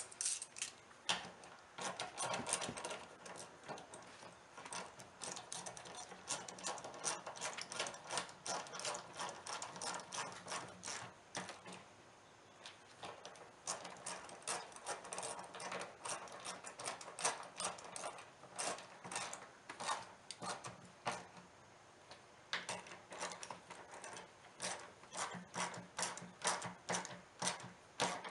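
Hand ratchet with a 10 mm socket clicking in long quick runs while the mirror's mounting bolts are tightened, with a couple of short pauses between runs.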